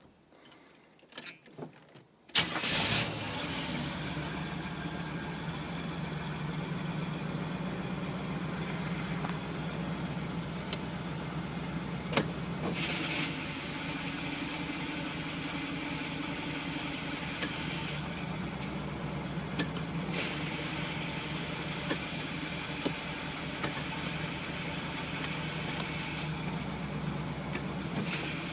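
Chevrolet Camaro engine cranking and catching about two seconds in, after a few faint clicks, then idling steadily.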